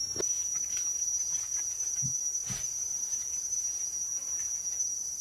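Insects calling in a steady, high-pitched shrill drone, with a couple of faint knocks about two seconds in.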